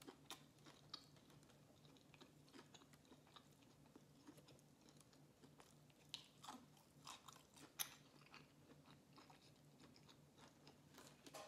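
Faint chewing of a mouthful of sushi roll: soft, scattered wet mouth clicks and smacks, one sharper click about eight seconds in, over a faint steady hum.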